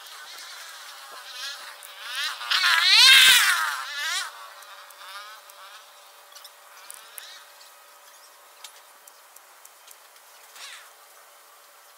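A flying insect buzzing close to the microphone, its pitch wavering up and down as it moves. It grows louder to a peak about three seconds in, then fades, with a brief faint buzz again near the end.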